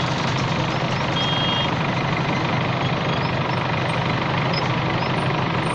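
JCB backhoe loader's diesel engine running steadily close by, with road traffic passing. A brief high beep sounds a little after a second in.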